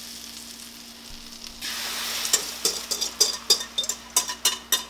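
Butter sizzling in a hot cast-iron skillet. About a second and a half in, the sizzle grows louder as batter is poured into the foaming butter. A whisk scrapes and clicks against the glass bowl about three times a second.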